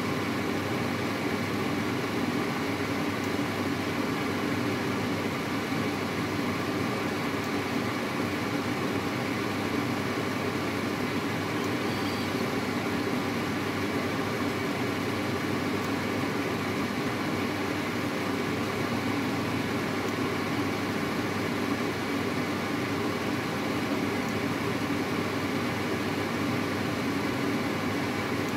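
A steady mechanical hum, with no change in level and no distinct knocks or clicks.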